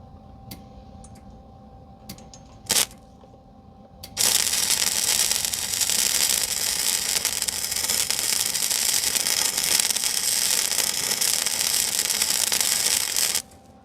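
Small electric arc welder laying a bead: a steady crackling hiss of the arc that starts about four seconds in and cuts off sharply near the end. Before the arc strikes there are a few faint clicks and one louder knock.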